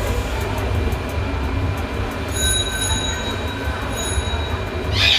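Hot-air rework station blowing steadily while heating a phone's eMMC chip to desolder it from the board. A thin high tone comes in twice briefly, and a short louder hiss sounds near the end.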